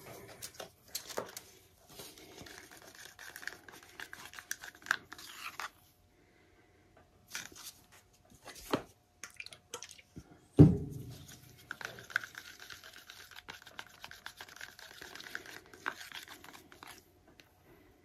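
Handling noises of paint cups, jars and a stir stick: rustling and scraping with scattered clicks, and one loud knock about ten and a half seconds in.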